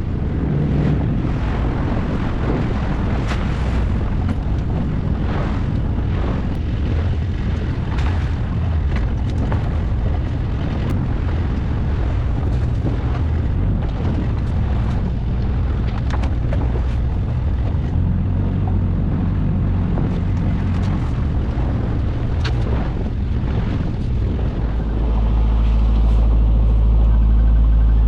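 Boat engine running steadily at low revs, with scattered knocks and clatter from pots and gear being handled on deck. Near the end the engine gets louder as the boat is throttled up.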